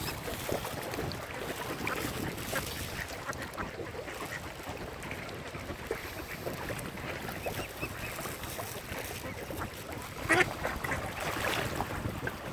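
Ducks quacking over a steady background of noise, with one louder call about ten seconds in.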